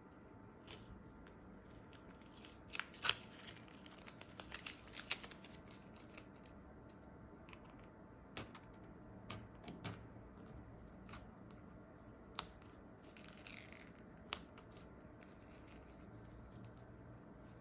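Masking tape being peeled off paper: a string of short crackling rips and clicks as the tape lifts from the sheet, thickest a few seconds in, then scattered single peels after.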